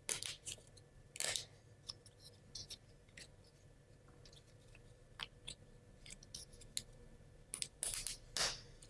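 Small laser-cut plywood model parts being handled and fitted together: scattered light clicks and scrapes, with a longer scrape about a second in and a cluster of clicks near the end.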